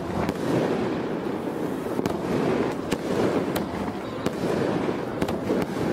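Fireworks going off: a dense, continuous crackling with sharp pops breaking through it every second or so.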